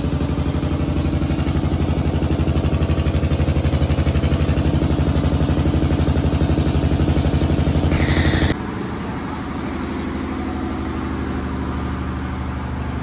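An engine idling with a fast, even throb, over the hiss of a pressure-washer jet spraying water. About eight and a half seconds in, the sound cuts abruptly to a quieter, steadier engine hum.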